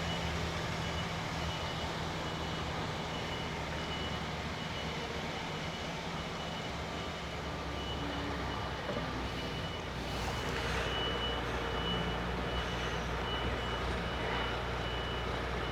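HGV lorry's diesel engine running at low revs as it reverses, with the high tone of its reversing alarm sounding over it.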